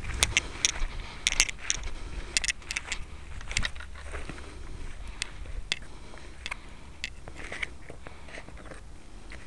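Crackling, rustling steps in dry grass and sharp clicking handling noises as a crashed foam flying wing is picked up, with wind rumbling on the microphone.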